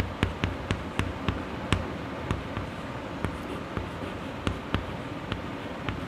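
Chalk tapping and scratching on a blackboard as letters are written: a string of short, sharp, irregular taps, about three a second.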